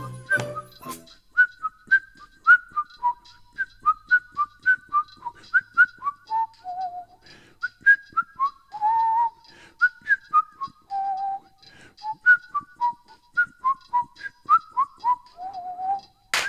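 Background music carried by a whistled melody: a bright tune of short, hopping notes, many ending in a small downward slide.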